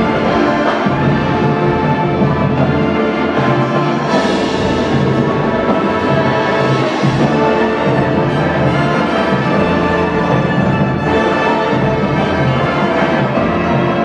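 High school marching band playing its show live in a gym: sustained brass chords over drums and timpani, steady and loud.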